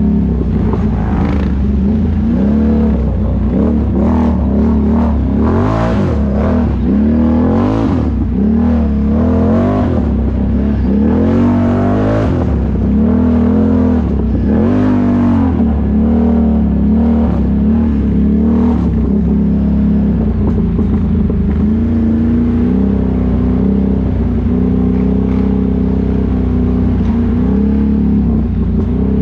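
ATV engine revving up and down repeatedly as it is ridden, then running at a steadier pace for the last third.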